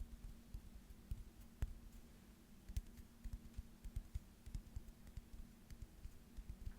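Small ASMR hand sounds close to the microphone: fingers making quick, irregular light taps and clicks, several a second, with soft low thumps, over a faint steady hum.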